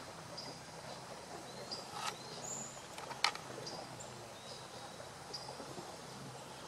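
Rainforest ambience: short, high chirps repeating every half second to a second over a faint steady hiss. Two sharp clicks, about two and three seconds in, the second the loudest sound.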